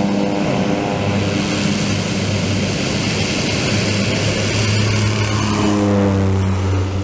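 Pilatus PC-6 Turbo Porter's turboprop at full power on its takeoff roll, a steady propeller buzz growing louder as the plane comes on. Near the end it passes close by and the pitch drops.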